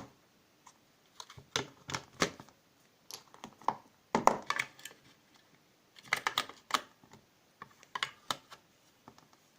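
Irregular clicks and light knocks of small hard objects being handled, some single and some in quick clusters, the loudest cluster a little past the middle.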